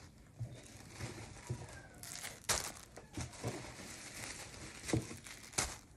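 Plastic packaging crinkling and rustling as items are handled and unwrapped, with a few sharper crackles, the loudest about two and a half seconds in.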